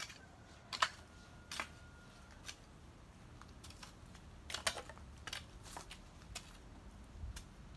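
A hand hoe's blade chopping and scraping into soil: irregular sharp strikes about once a second, with a quicker cluster of several just past the middle.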